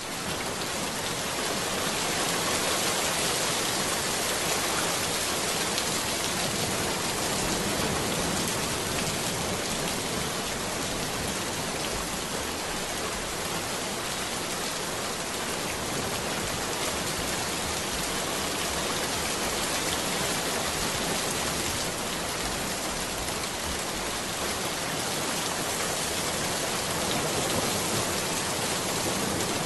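Steady rain, an even hiss of falling drops with no breaks or changes.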